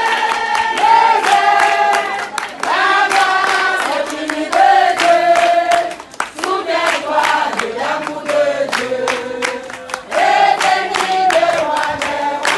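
A group of voices singing together in unison, holding notes and stepping between pitches, with handclaps keeping a steady beat.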